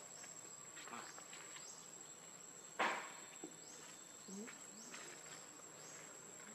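Insects droning steadily at a high pitch, with short rising chirps repeating about every second. A single short, sharp noise comes about three seconds in.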